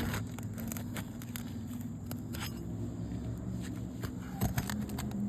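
Asphalt roof shingle crackling and tearing in scattered sharp clicks as it is pried loose by hand: the shingle is stuck fast to its sealant strip and rips rather than releasing. A steady low hum runs underneath.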